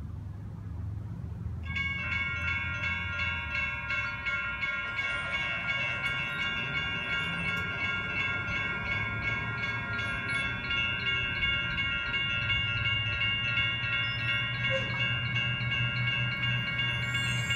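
Several electronic railroad crossing bells, General Signal Type 1 units among them, start up about two seconds in and ring on together as the crossing activates and the gates come down. Their rapid, overlapping strikes form a steady metallic chiming.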